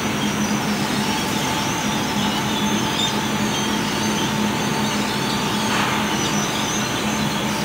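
Steady hum of shop machinery around CNC laser cutters: a low drone with a fainter, higher whine above it, holding level without change.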